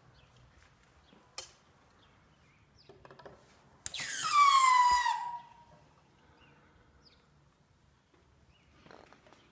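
Hard drive forced onto nail spikes by a hydraulic bottle-jack press: a few faint clicks from the jack being pumped, then, about four seconds in, one loud metal screech that slides down in pitch and dies away after about a second and a half as the nails pierce the drive's casing.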